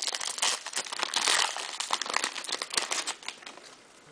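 Foil wrapper of a 2010 Bowman Chrome baseball card pack crinkling as it is handled and torn open. The crackling stops about three seconds in.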